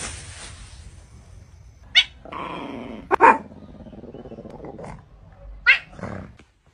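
A pet animal growling, with short sharp cries about two seconds in, twice around three seconds, and again near six seconds.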